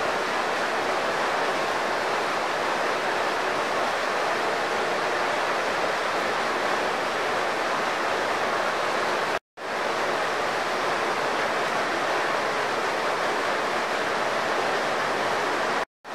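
Steady, loud rushing noise with no pitch or rhythm, cut off by two brief silent gaps, one about halfway through and one right at the end.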